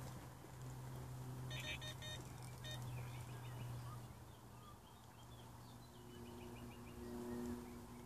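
A carp bite alarm on the rod pod gives a short run of quick electronic beeps as the rod is lifted and line is drawn through it. Birds sing faintly, over a steady low hum.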